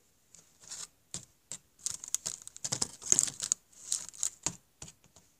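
Irregular rustling, scraping and clicking close to the microphone as cardboard and toy pieces are handled, densest in the middle.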